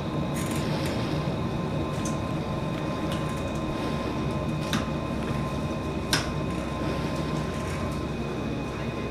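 Steady low rumbling background noise with faint steady whines above it, broken by a few sharp clicks, the clearest about five and six seconds in.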